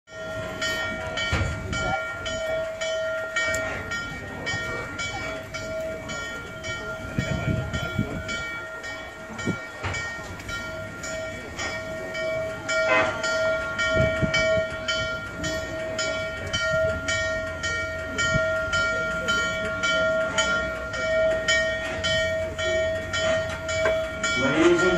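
Steam locomotive bell ringing steadily, about two to three strokes a second, as N&W 611 moves to couple to its train, with low rumbling underneath.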